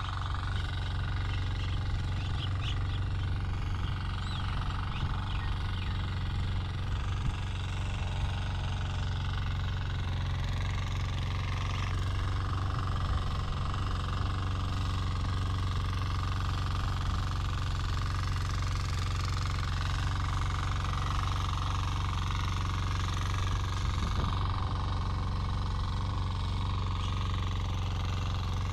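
Small engine of a walk-behind mini rotavator running steadily under load as its tines till the field soil.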